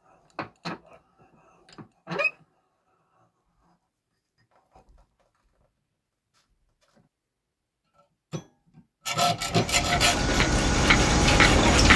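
A few light clicks and knocks as a small metal piece is set into a steel bench vise. From about nine seconds in, loud continuous rasping of a hand file or saw working the metal clamped in the vise.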